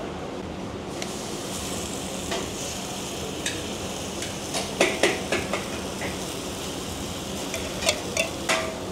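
Egg-and-meat murtabak filling sizzling on a hot flat griddle as it is poured from a steel mug, the hiss swelling about a second in. Sharp metal clinks of the spatula and mug come several times.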